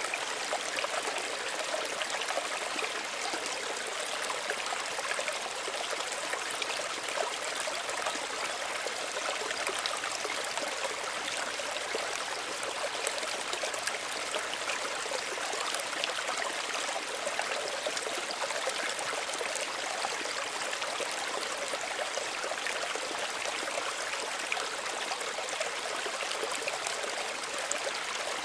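Small stream of running water, a steady trickling and splashing.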